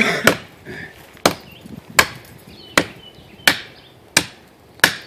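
A large Cuma battle cleaver chopping into the trunk of a live, wet pine tree: seven evenly paced blows, a little under a second apart, each a sharp crack. The blade is striking a hard knot and bouncing off rather than biting in.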